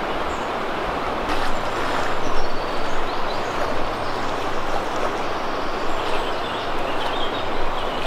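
Fast-flowing river rushing over shallow riffles: a steady, even rush of water.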